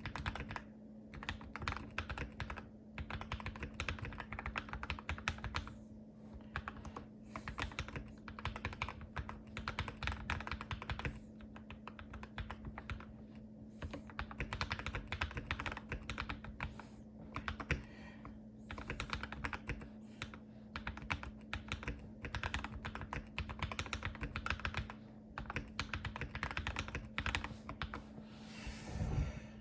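Fast typing on a Keychron K2 mechanical keyboard with lubed KTT Kang White V2 linear switches, case foam and PCB switch pads: quick runs of keystrokes broken by short pauses every second or two. A steady low hum runs underneath.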